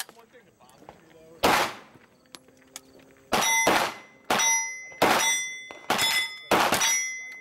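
Rifle fired in single shots: one shot, then after nearly two seconds a string of about six shots half a second to a second apart. Steel plate targets ring with a clear metallic tone after most of the later shots.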